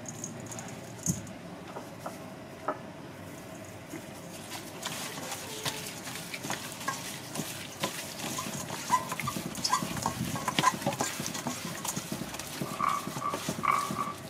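Gloved hands massaging dry seasoning into raw crocodile tenderloin in a stainless steel bowl: wet squishing and rubbing with many small clicks, starting about four seconds in. A few short squeaks come near the end.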